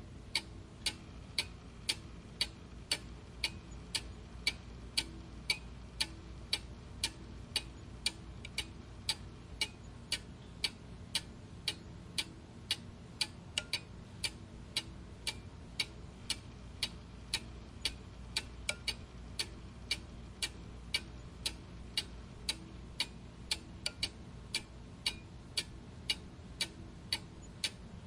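Clock ticking steadily, about two ticks a second, each tick a short sharp click.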